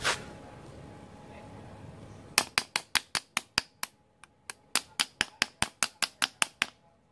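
A chipping hammer tapping slag off a fresh stick-weld bead on steel: about twenty quick, sharp metal taps, roughly five a second, with a brief pause partway through.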